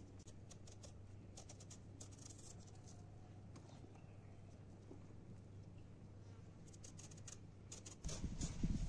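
Vegetable peeler scraping strips of skin off an eggplant in short, quick strokes that come in small clusters. A louder low rumbling noise starts near the end.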